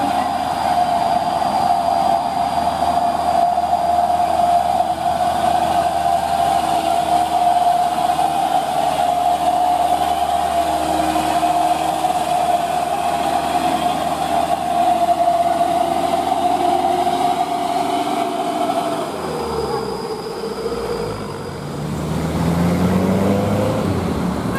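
Loaded Mitsubishi Fuso dump truck's diesel engine pulling a load of sand uphill, running steadily with a high whine over it. About twenty seconds in it fades, and a second truck's engine comes up, rising in pitch.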